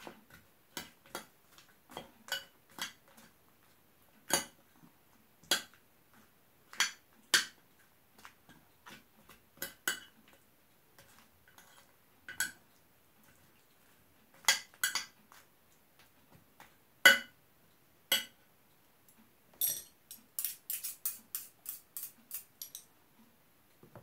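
A metal spoon clinking and tapping against a dish and a plastic yogurt cup while spooning out yogurt. The clinks are single and irregular, then come in a quick run of taps near the end.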